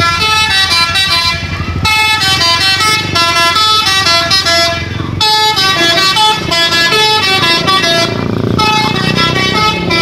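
A bus's 'telolet basuri' musical horn playing a melody of stepped, high notes in a few phrases, with short breaks about 2 and 5 seconds in, over the low rumble of engines.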